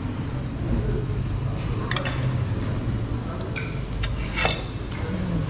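Cutlery and crockery clinking on a restaurant table: a few sharp clinks, the loudest about two-thirds of the way through, over a low steady background hum.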